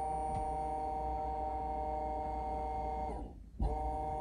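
Electro-hydraulic pump of an AL-KO HY4 levelling-jack system running with a steady whine and hum as the jacks level the motorhome. A little after three seconds it winds down and stops, then starts again about half a second later.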